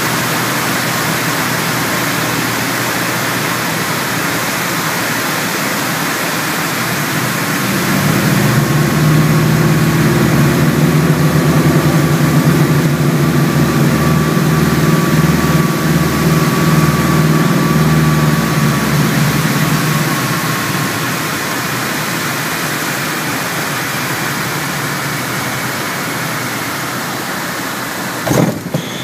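Piper Seneca's twin piston engines and propellers, heard from inside the cockpit with steady airflow noise during a night landing approach. About eight seconds in the engine sound swells into a louder, low pulsing drone for roughly twelve seconds, then eases back. A brief thump comes near the end.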